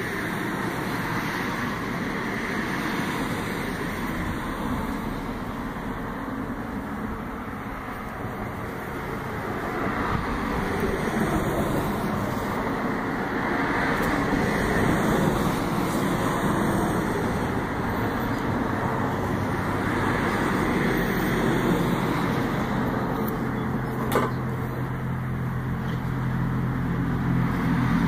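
Road traffic: a continuous rush of passing cars that swells and fades over several seconds.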